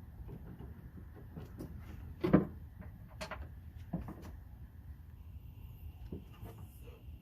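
Scattered clicks and knocks of parts being handled and fitted inside a car door while a door lock actuator is being installed. The loudest is a sharp knock a little past two seconds in, with a few smaller ones after.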